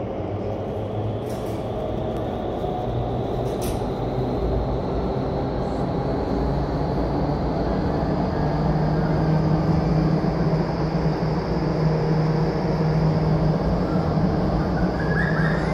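Indoor vertical wind tunnel running: a steady rush of air and fan noise that grows louder, with a faint whine rising slowly in pitch as the fans speed up and the airflow comes up to flying speed.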